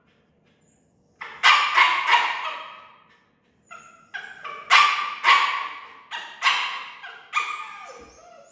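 A dog barking, about a dozen sharp barks in two bouts, each ringing on in the room. It is alert barking, set off by someone heard in the garage below.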